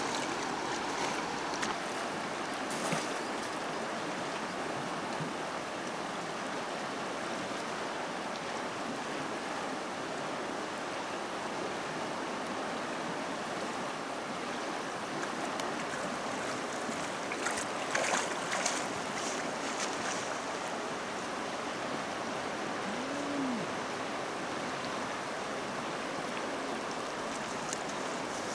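Steady rushing of a swollen, muddy river in flood, with a few brief splashes about three seconds in and again around eighteen seconds as the woven basket net is worked through the water.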